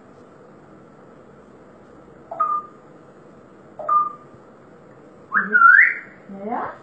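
Parrot whistling: two short whistled notes, each sweeping up and then held briefly, about a second and a half apart. A louder, longer warbling whistle follows near the end.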